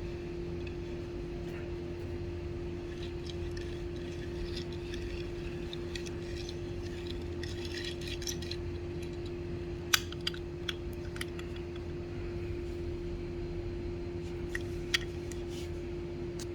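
Small sharp clicks and clinks from a die-cast toy car being handled, a few of them louder about ten seconds in and one near the end, over a steady background hum.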